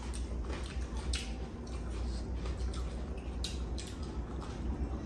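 Eating sounds: wet squishing of rice and curry being mixed by hand and chewing, with a few small clicks, over a steady low hum.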